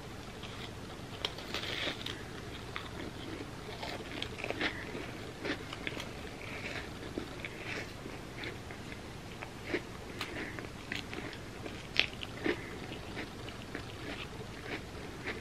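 Chips being bitten and chewed, with irregular crisp crunches and softer chewing between them; the sharpest crunch comes about twelve seconds in.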